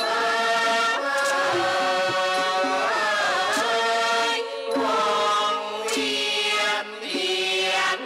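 Thai classical singing for a khon masked dance-drama, with long, drawn-out sung phrases over the ensemble. One line slides down and back up about three seconds in.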